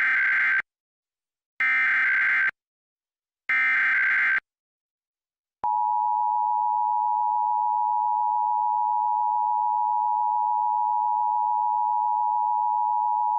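Emergency Alert System broadcast signal: three short bursts of the digital SAME header data tones about two seconds apart, then the two-tone attention signal held steady for about eight seconds.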